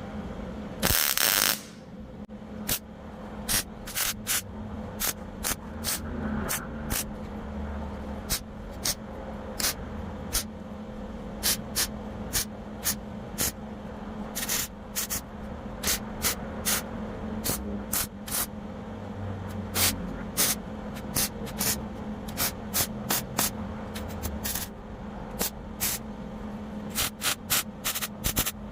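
Welder tacking an overlapping steel patch panel onto a pickup bedside. There is one longer burst of crackling about a second in, then many short crackling zaps, roughly one every half second to a second, over a steady low hum.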